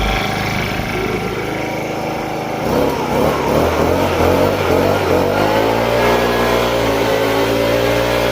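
Honda four-stroke blower engine running after a carburettor overhaul: idling low, then revved up about three seconds in, its pitch wavering for a couple of seconds before it holds steady at high speed.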